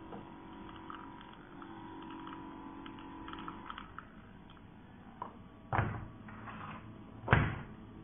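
A faint steady hum from a portable espresso machine stops a few seconds in. Then come light plastic clicks and two clunks as its plastic parts are handled, the louder clunk near the end.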